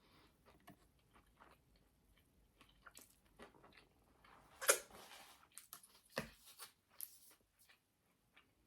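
A person eating: quiet chewing and wet mouth clicks, with one sharper crunch about four and a half seconds in and a few smaller ones after it.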